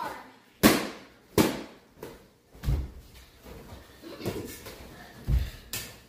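Balloons in a balloon garland arch being popped one after another: about six pops in six seconds, three of them sharp, loud bangs and the others duller thuds.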